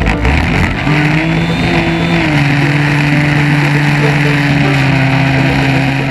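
Stihl MS660 two-stroke chainsaw running at high revs while ripping a yellow birch log on a chainsaw mill. Its pitch dips slightly about two seconds in and then holds steady, over the hiss of the chain cutting.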